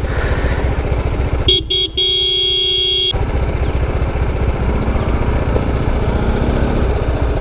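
A vehicle horn sounds two short toots and then one longer blast of about a second, a little over a second in. Under it, a motorcycle engine idles steadily throughout.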